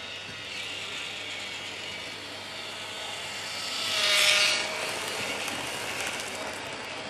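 N gauge model train running past close by: a fast, fine mechanical clicking and whirring from its wheels and motor, swelling to its loudest as the train passes about four seconds in.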